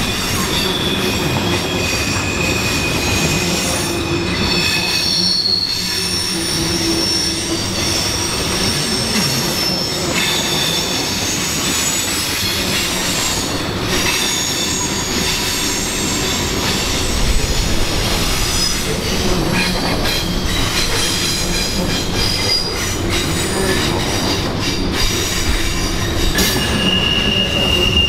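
Norfolk Southern intermodal freight train rolling past, its cars rumbling steadily while the wheels squeal in several high, shifting tones.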